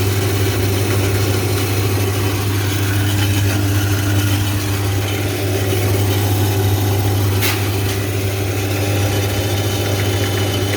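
Electric saw's motor running steadily with a strong low hum, on a test run after its repair and reassembly.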